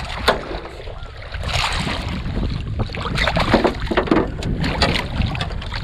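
Hooked striped bass thrashing and splashing at the water's surface right beside the boat, a run of irregular splashes from about a second and a half in. Wind rumbles on the microphone underneath.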